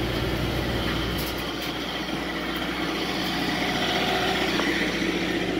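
Kohler generator running, a steady low engine hum.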